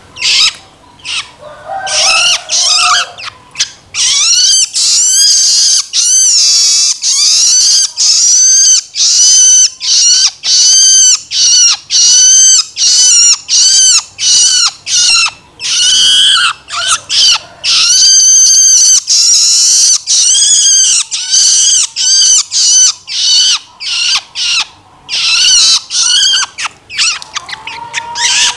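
Juvenile long-tailed shrike giving its loud begging call (loloan): harsh, arched notes repeated about twice a second, in runs broken by brief pauses.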